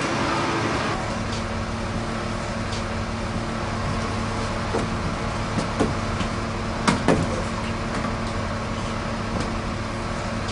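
Bus engine running with a steady drone, heard from inside the bus, with a few sharp knocks about six to seven seconds in.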